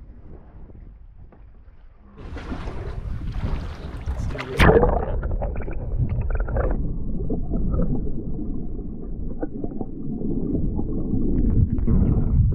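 Muffled rush and rumble of water heard through a camera held underwater, with a sharp knock about four and a half seconds in.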